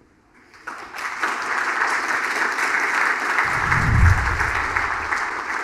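Audience applauding: the clapping starts about half a second in, quickly swells and holds steady. A low boom comes about four seconds in.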